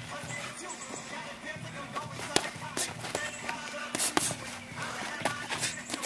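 Music playing in the background, with the sharp slaps of boxing-glove punches landing several times, two of them in quick pairs.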